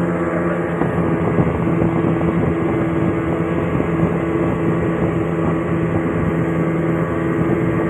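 Engine running steadily at a constant speed, a continuous droning hum.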